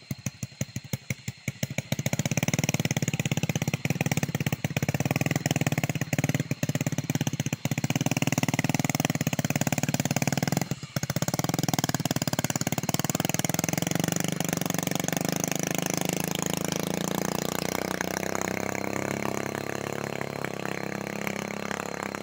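Motorcycle engine running and pulling away under load with a coffee pulping machine mounted on it, with a brief break about eleven seconds in. Over the second half the engine sound fades steadily as it rides off.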